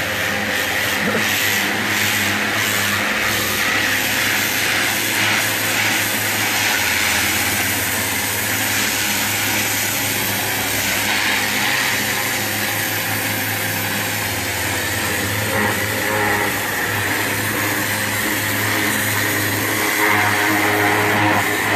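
Pressure washer's high-pressure water jet blasting barnacles off a boat hull: a loud, steady hiss of spray with the washer's motor running underneath.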